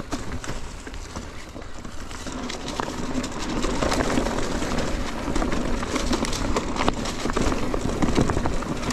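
Mountain bike ridden fast down a dirt trail: rolling tyre noise with many sharp rattles and clicks as the bike goes over roots and bumps, getting louder about three seconds in as speed builds.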